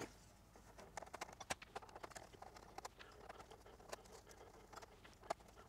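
Faint, irregular clicks and taps of hands working the expansion cards' metal brackets and the computer chassis to free the cards for removal.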